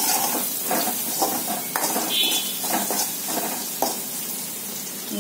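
Steel slotted spatula stirring and scraping onion, green chillies and curry leaves around a kadai of hot oil, with a steady sizzle under irregular scrapes against the pan: the tempering being fried.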